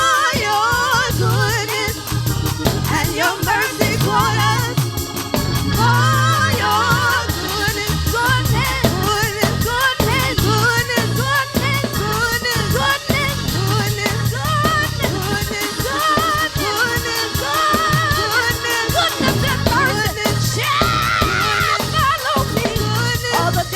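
Gospel song: a solo voice singing with wide vibrato over organ, bass and drums.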